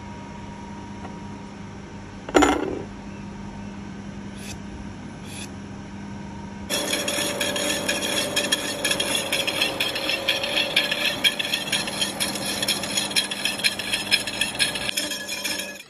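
Slitting saw on a milling machine cutting through a steel ring under coolant: a loud, dense, high-pitched cutting screech with a rapid flutter, starting abruptly about two-thirds of the way in. Before it, a steady machine hum with a single metal clank about 2.5 seconds in.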